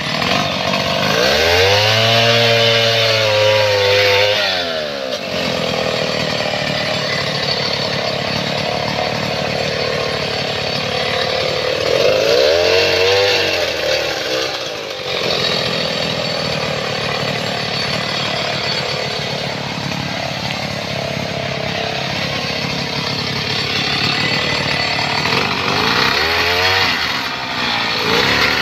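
STIHL 070 two-stroke chainsaw running, revved up and back down three times: near the start, about halfway through, and near the end, with steady running in between.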